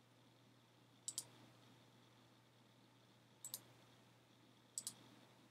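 Three quick double clicks of a computer pointing-device button, about a second in and twice more in the second half, over near silence with a faint low hum.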